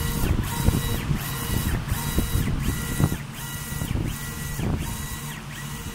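Stepper motors of a double-head 1390 CO2 laser engraving and cutting machine whining as the laser gantry sweeps back and forth. The rising and falling whine repeats about every three-quarters of a second, over a low hum.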